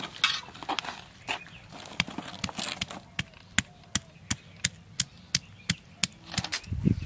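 Stone roller knocking down on a stone grinding slab to crush garlic cloves and ginger before grinding: sharp, evenly spaced knocks about three a second, with a heavier low thump near the end.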